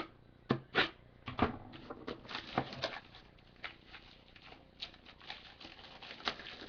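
Trading cards and their packaging being handled by hand: irregular sharp clicks and rustling, busiest in the first three seconds.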